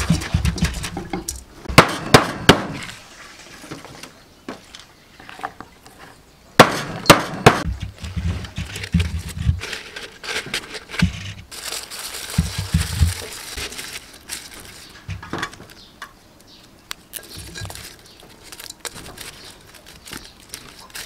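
Hands working coarse salt in a metal pot: grains crunch and scrape, with clusters of sharp metallic clinks about two seconds in and again around seven seconds. Quieter rustling follows as lemongrass stalks are laid on the salt.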